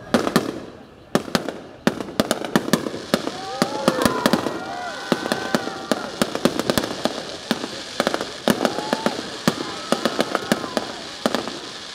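Fireworks going off in rapid succession: a dense run of sharp cracks and bangs over a continuous crackle.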